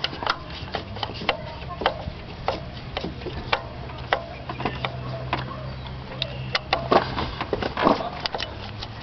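Irregular sharp clicks and light taps of a hand tool turning the new ignition coil's mounting screws in a distributor, over a steady low hum.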